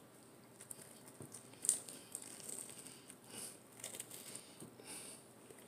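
Faint biting and chewing of a crispy chicken quesadilla: soft, scattered crunches and crinkly mouth sounds, the clearest crunch about one and a half seconds in.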